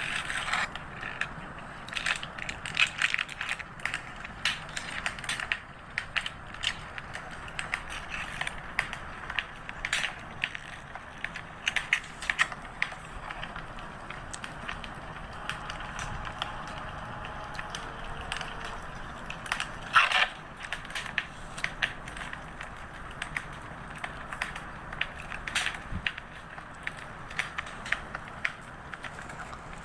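Crackling fireplace sound, with paper rustling and crinkling as a journal is decorated by hand. There are many short sharp crackles over a steady hiss, and one louder crinkle about twenty seconds in.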